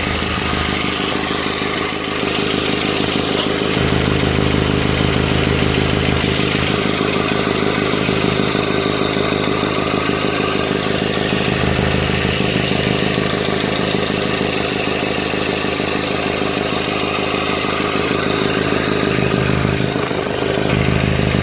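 Turbocharged four-cylinder engine of a B6 Audi A4 idling steadily, its low hum shifting in strength a few times. The owner suspects an exhaust leak at the exhaust manifold, since a strong smell of exhaust fumes remains after a new manifold-to-turbo gasket.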